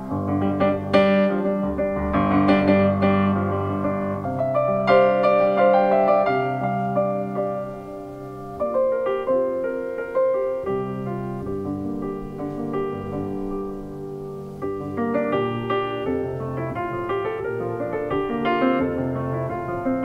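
Solo grand piano played live, in chords and running phrases; louder near the start, softer in the middle, then busier again in the last few seconds.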